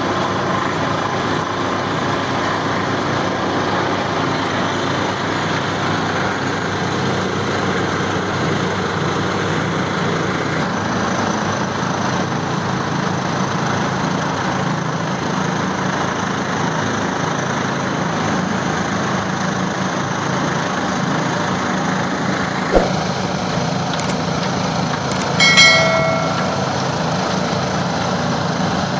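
A road roller's diesel engine running steadily. A sharp knock comes about 23 s in, and a brief ringing tone sounds a couple of seconds later.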